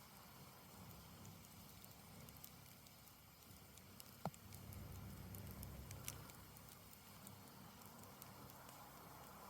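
Campfire burning down: faint crackling with scattered small pops, and one sharper, louder pop about four seconds in.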